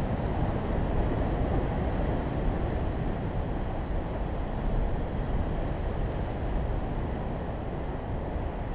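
Steady rumbling wind noise on the microphone over the wash of sea surf breaking against rocks.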